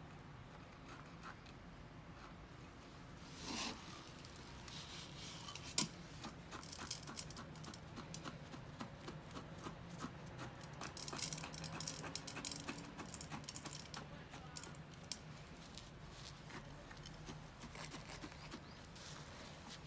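A wooden chopstick jabbed again and again into coarse granular bonsai soil in a small pot, giving faint gritty scratching and a run of small clicks as the soil is worked down around the roots during repotting. One sharp click stands out about six seconds in.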